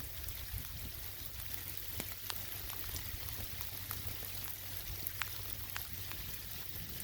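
Rain falling, a steady hiss with scattered drops ticking close by, over a low steady rumble of wind and flowing river water.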